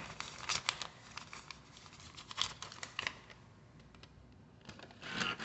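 A paper dollar bill being handled and crinkled, with scattered small clicks, as it is worked at a vending machine's bill slot. The clicks and rustles come thickest in the first few seconds, die down, then pick up again near the end.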